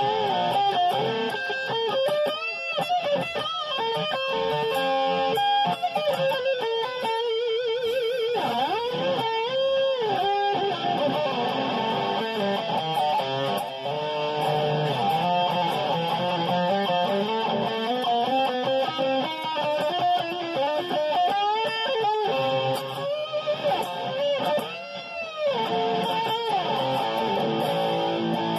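Seven-string electric guitar, a Schecter Damien Elite 7 rebuilt on an ML-style body with a Floyd Rose, played through an amp in a continuous run of riffs and lead lines. Notes are bent up and back down about ten seconds in and again near the end.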